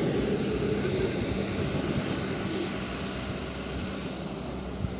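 A steady engine drone with a low hum, slowly fading.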